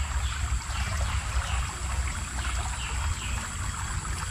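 Small river flowing and trickling steadily over a low rumble, with a short falling chirp repeating about twice a second.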